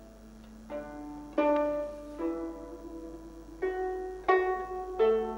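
Background music: a plucked string instrument playing a slow melody of single notes, about one a second, each ringing on until the next.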